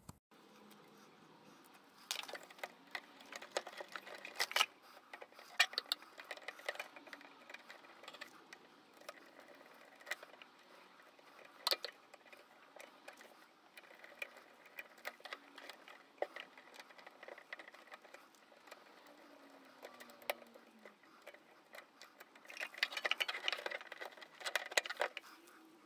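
Irregular small clicks, taps and light scrapes of a screwdriver and wire connectors being handled while wiring a terminal block. There is a busier run of clicking and scraping near the end.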